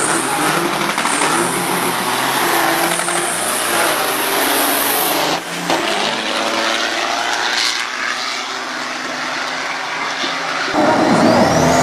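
Two diesel trucks running flat out in a drag race, their engines sweeping up and down in pitch. A high turbo-like whistle rises near the end.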